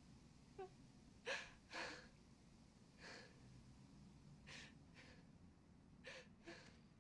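A person's quiet, ragged breathing: a series of short gasping breaths, several in quick pairs, one or two with a slight catch of the voice, in the shaken aftermath of a violent struggle.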